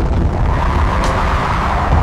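A loud, steady deep rumbling roar, with no separate strikes or pauses.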